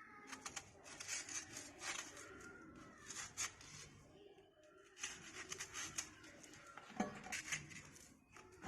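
Close-up crunching and chewing of crisp raw green mango, crackly bites in two bouts with a short pause between.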